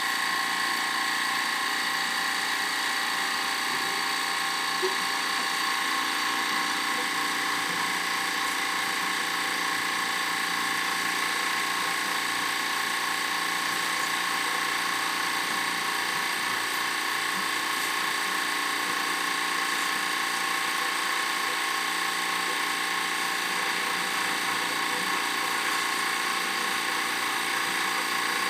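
Drain-cleaning machine running steadily with a constant high whine, working through a kitchen drain line blocked with grease.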